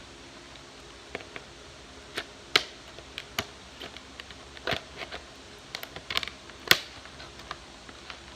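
Scissors snipping and hands working at stiff box packaging: irregular sharp clicks and snaps, the loudest about two and a half seconds in and again near seven seconds.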